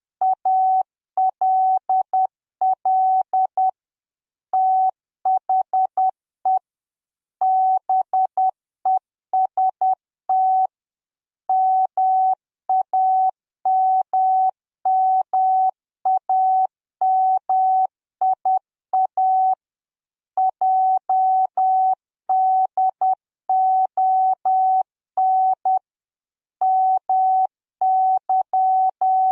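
Morse code beeps: a single pure tone keyed on and off in short dots and longer dashes, grouped into letters, with longer pauses between words. It is a long message played out at a steady pace.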